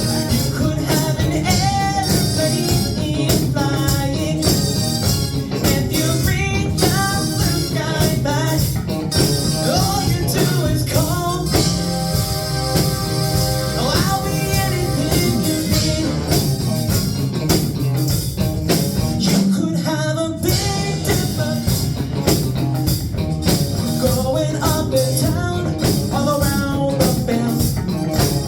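A pop-rock song playing: a voice singing over a steady beat and instruments, with a brief break in the backing about twenty seconds in.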